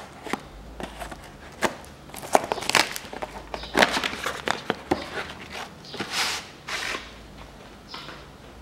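A new cabin air filter being handled in its cardboard box and plastic wrapping: irregular rustling and crinkling with sharp clicks.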